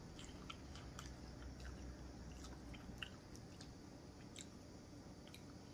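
A person chewing food close to the microphone: faint, irregular mouth clicks.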